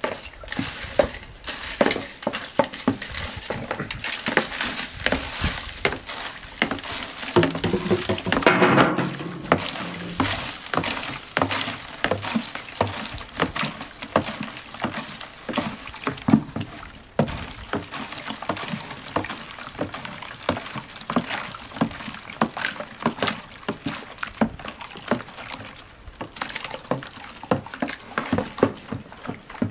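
Wooden stick stirring lye (caustic soda) dissolving in water in a plastic bucket, knocking and scraping against the bucket's sides and the thermometer in quick, irregular clicks; the solution is being stirred to dissolve the lye and cool it. A brief, louder call sounds about eight seconds in.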